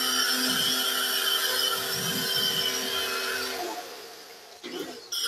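Electric pressure washer's motor whining steadily with the hiss of spray as soap solution is sprayed onto an air conditioner's condenser coil. It cuts off about three and a half seconds in and starts up again near the end.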